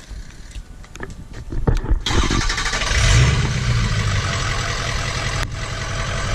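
A 2003 Ford truck's 6.0 Power Stroke V8 turbo diesel starts up about two seconds in and then runs at a steady idle. A few light clicks come before it.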